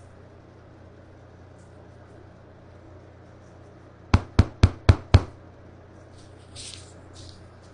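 Five sharp knocks in quick succession, about four a second.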